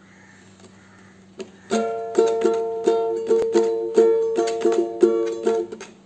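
Ukulele starting to play about two seconds in: a steady run of plucked chords, about three strokes a second, each ringing on into the next, with a brief break near the end.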